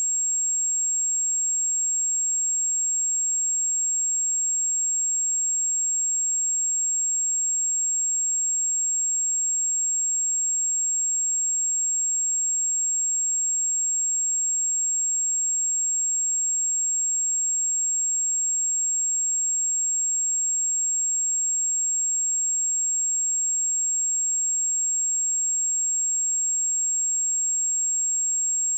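Pure 7553 Hz sine-wave test tone, a single steady high-pitched whistle held without change.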